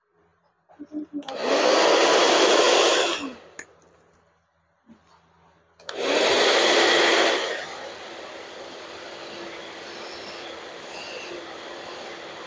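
Handheld hair dryer blowing in two loud bursts of about two seconds each, its motor pitch dropping as each one cuts off. From about halfway through it runs steadily and more quietly.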